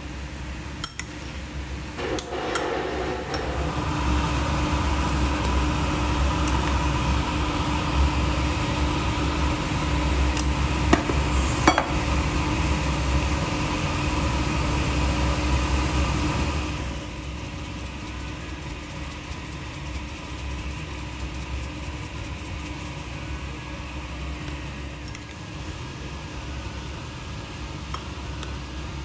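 A fork stirring and scraping a wet batter of grated eggplant, egg and flour in a bowl, with light clinks of the fork against the bowl. A steady low hum runs underneath and drops noticeably a little past halfway.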